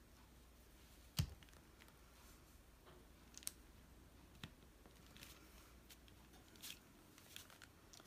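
Faint tabletop crafting noises: hands pressing glued cardboard puzzle pieces onto a paper tag. There is one sharp knock about a second in, then a few light clicks and short paper rustles.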